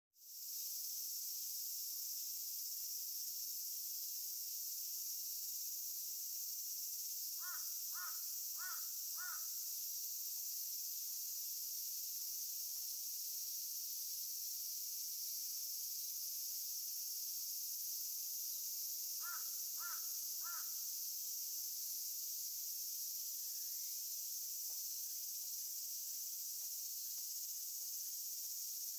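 A crow cawing, four caws in quick succession about seven seconds in and three more around twenty seconds in, over a steady high-pitched insect chorus.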